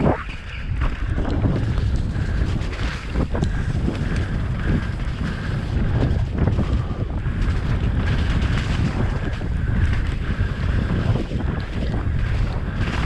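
Wind buffeting a helmet-mounted camera's microphone at speed, over the rumble of a mountain bike's tyres on a wet dirt trail and frequent knocks and rattles from the bike over roots and rocks.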